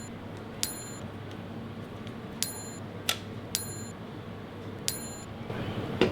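A few sharp metallic clicks, irregularly spaced, each with a brief high ring, over a steady low hum.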